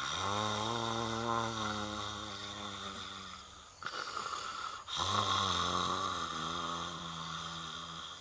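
A man snoring in his sleep: two long, drawn-out snores with a low buzzing tone, the second starting about a second after the first ends.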